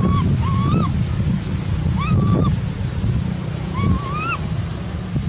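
Macaque calls: about four short, rising-then-falling tonal coos, each about half a second long, over a steady low rumble of wind on the microphone.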